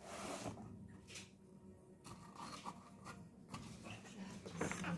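Soft rustling and sliding of trading cards and the cardboard box contents being handled, in a few brief scrapes, the clearest at the start.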